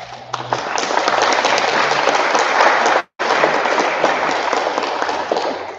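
Audience applauding: a dense patter of many hands clapping, broken by a split-second dropout about three seconds in and dying away near the end.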